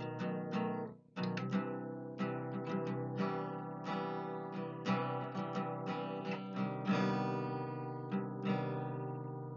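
Acoustic guitar music: a run of plucked notes that ring and die away, with a short break about a second in.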